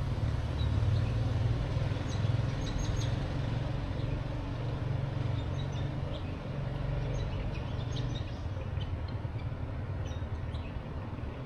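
Steady low rumble of distant road traffic, with small birds chirping briefly here and there.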